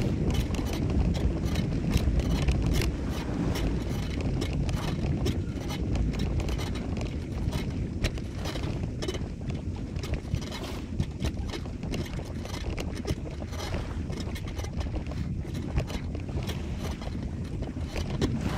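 Wind rumbling on the microphone, with many small irregular clicks and scrapes over it.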